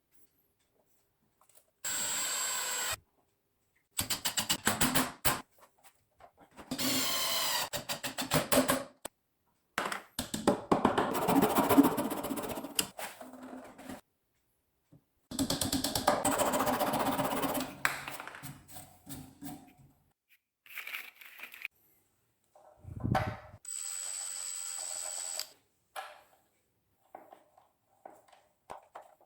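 Power tool running in short bursts that start and stop abruptly, with silent gaps between them; two of the bursts carry a steady high whine.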